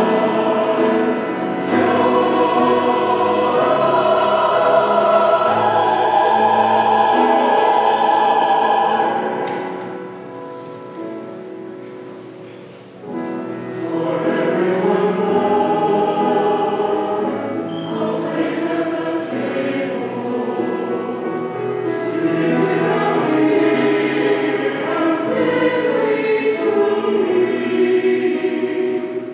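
Church choir singing an anthem. The singing falls to a soft passage for a few seconds about ten seconds in, then comes back at full strength.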